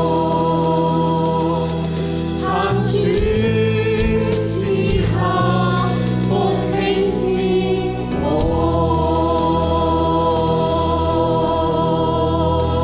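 Cantonese worship song: a group of voices singing over keyboard accompaniment, with long held chords at the start and again from about eight seconds in.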